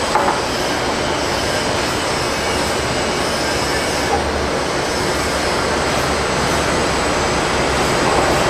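Steady roar of jet airliner engines on the apron, with small knocks just after the start and about four seconds in.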